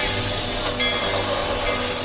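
Music playing under a loud, steady hiss.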